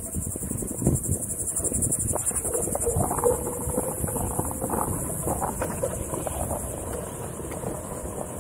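Steady high trilling of insects, under wind buffeting the microphone and the uneven rumble of a Onewheel rolling over a sandy trail.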